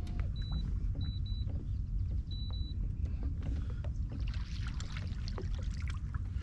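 Steady low wind rumble and water sounds around a fishing kayak, with scattered small knocks. A few short high beeps come in the first three seconds, and a brighter hiss like splashing water joins from about halfway through.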